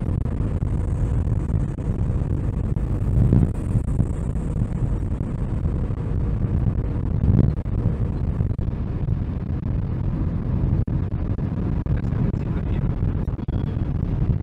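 Car driving, heard from inside the cabin: a steady low engine and road rumble, with two brief louder swells about three and seven seconds in.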